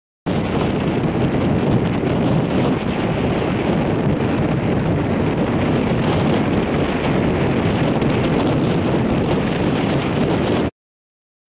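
Wind buffeting the microphone over the steady rush of breaking ocean surf. The sound cuts in just after the start and cuts out abruptly near the end, with dead silence on either side.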